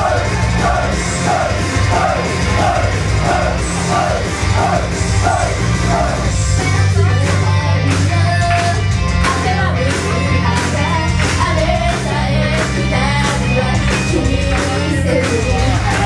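A female idol duo singing a pop song live through a club PA, loud. A repeating figure that slides down in pitch opens it, and drums come in about six seconds in.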